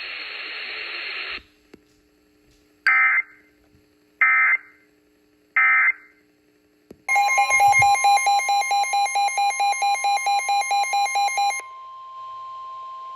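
Three short bursts of EAS digital data tones, about 1.4 s apart: the SAME end-of-message code closing a severe thunderstorm warning. Then a loud, rapidly pulsing electronic alert tone sounds for about four and a half seconds. A quieter steady tone carries on alone for about two more seconds, announcing the next warning.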